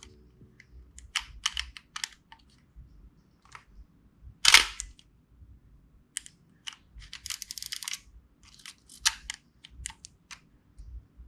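Minolta XG-M 35 mm film SLR being worked by hand: a string of sharp mechanical clicks, with one loud click about four and a half seconds in and a quick ratcheting run of clicks a couple of seconds later, from the shutter firing and the film being wound on.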